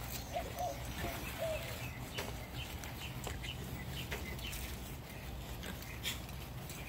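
Olde English Bulldogge puppies play-wrestling: a few short squeaky whimpers in the first second and a half, then scattered light clicks and scuffles, over a steady low background rumble.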